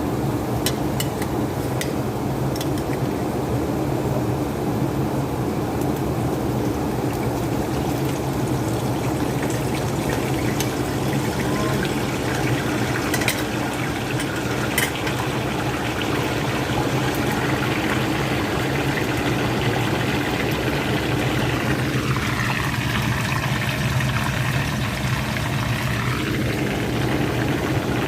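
Whole chicken deep-frying in hot oil: a steady sizzle and bubbling over a low hum, with a few short pops.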